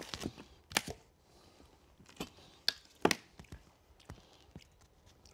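A few sharp clicks and light taps from a plastic sauce bottle being handled, the loudest about three seconds in.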